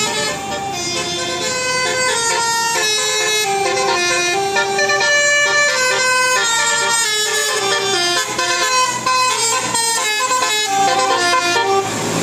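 Bus telolet horn, a multi-note air horn, playing a tune of short stepping notes without a break.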